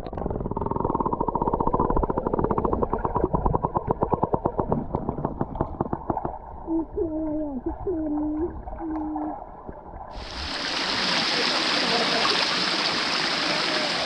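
Underwater sound picked up by a camera held below the surface of a clear spring-fed pool: a muffled rumble with rapid crackling ticks and faint muffled voices. About ten seconds in, the camera breaks the surface and the sound opens suddenly into a steady hiss of water.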